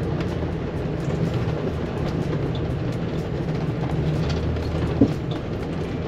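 A motorhome rolling slowly along a dirt and gravel road, heard from inside the cab: a steady low rumble of engine and road noise. A single sharp knock comes about five seconds in.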